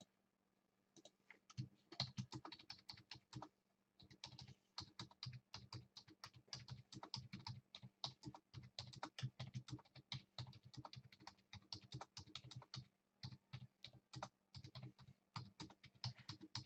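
Computer keyboard being typed on, faint: a quick run of keystrokes that starts about a second in, breaks briefly near four seconds, then carries on, as a message is typed out.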